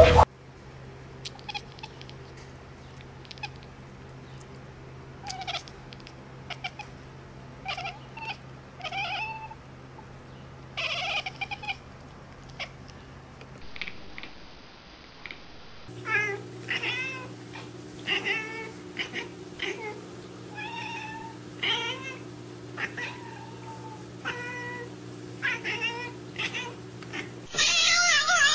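Domestic cats meowing: a string of short, separate meows, then after a brief pause a quicker run of chirpy, talking meows from a black-and-white tuxedo cat. About a second before the end a much louder animal call cuts in.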